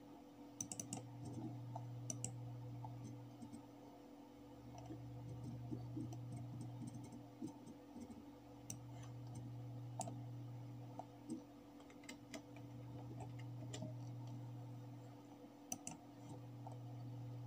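Computer mouse button clicking every second or two, single clicks and quick pairs, over a low hum that swells and fades about every four seconds.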